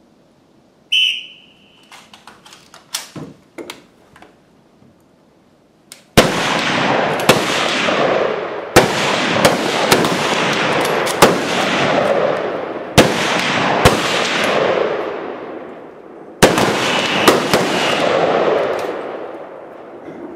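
A short whistle blast about a second in, then a few light knocks and clicks. From about six seconds in comes a string of rifle shots from several shooters firing one after another, about a dozen in all, each followed by a long rolling echo.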